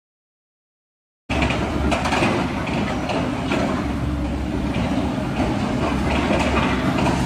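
Dead silence for about a second, then a loud, steady rumble of a heavy vehicle's engine with light clatter over it.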